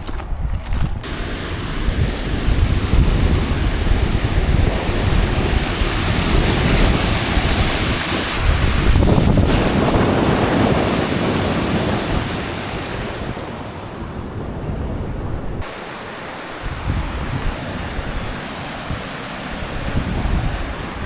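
Rushing water of a river falls, a loud steady roar, with wind buffeting the microphone in gusts.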